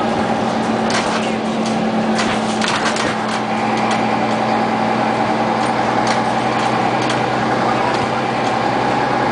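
Inside a moving Scania CN94UA OmniCity city bus: steady engine drone and road noise with a steady high whine. Brief rattles from the bus body come about one second in and again two to three seconds in.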